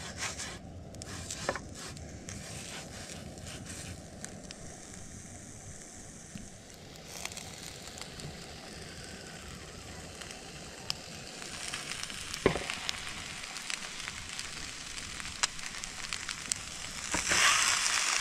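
A trout frying in a non-stick pan on a propane camp stove: a steady sizzle and crackle with a few sharp clicks, growing louder over the last second or so as the fish is weighted down with rocks.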